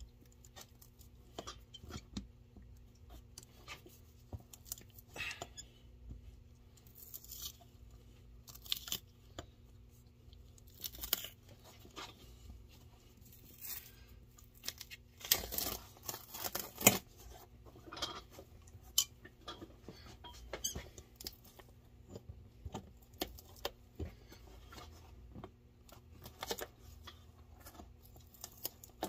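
A boot's rubber sole being pried and pulled off with a scraper and pliers: irregular scrapes, clicks and short tearing rips as it comes loose, the loudest tearing about halfway through.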